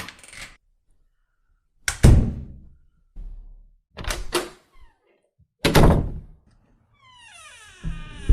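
A series of door sounds: heavy door-closing thuds about two and six seconds in, with a pair of sharper latch-like clicks between them. Near the end a drawn-out sound falling in pitch begins, like a door starting to creak.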